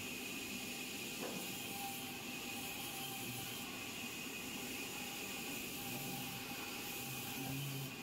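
Large vertical band saw running while a wooden plank is fed through it: a steady, even cutting noise with a high hiss.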